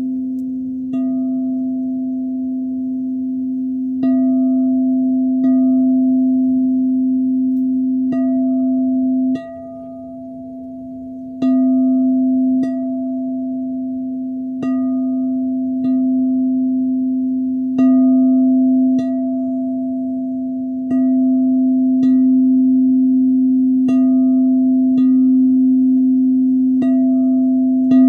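Singing bowl struck again and again, about every one to two seconds, each strike renewing a steady ringing hum with higher overtones above it. The ringing cuts off suddenly about a third of the way in and comes back with a strike two seconds later.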